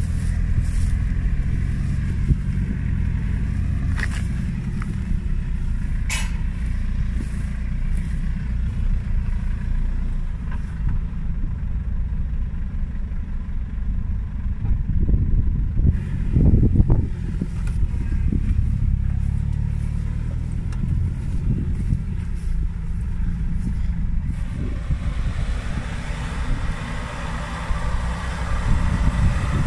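Off-road 4x4 engine running at low revs, a steady deep rumble as the vehicle crawls over rough ground. Two sharp knocks come a few seconds in and a louder surge about halfway through; a higher hiss joins in the last few seconds.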